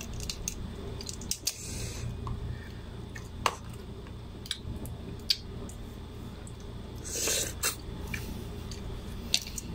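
Cooked seafood shells being cracked and peeled by hand: scattered sharp cracks and clicks, with a brief hissing noise about seven seconds in, over a steady low hum.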